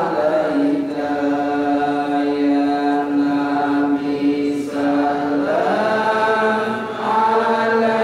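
A man's voice chanting Islamic devotional recitation into a microphone, in long held notes: one note held for several seconds, then a slide down to a lower note a little past halfway.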